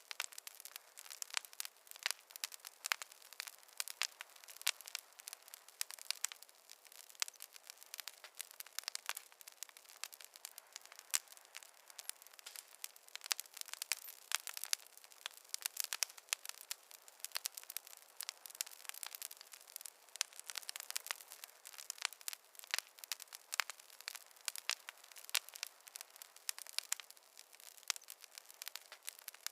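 Fireplace fire crackling: a dense, irregular stream of sharp snaps and pops with no low rumble beneath.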